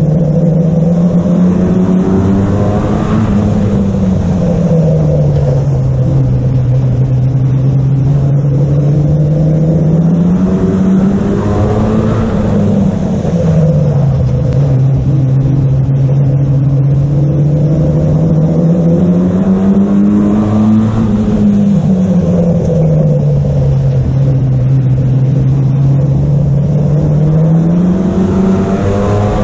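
Oval-racing stock car's engine heard on board, running hard lap after lap: the revs climb on the straights and drop back through the bends. This happens four times, about every eight or nine seconds.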